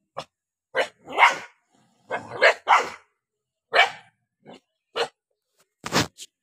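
A dog's angry barking: about ten short, sharp barks in an irregular run, the loudest in the first three seconds.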